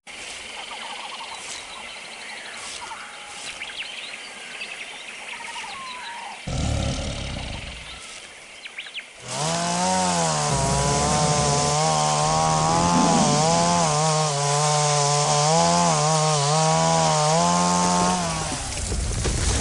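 Forest ambience with birds calling, then a low rumble, then a chainsaw running for about nine seconds, its pitch wavering up and down as it works under load before it dies away near the end.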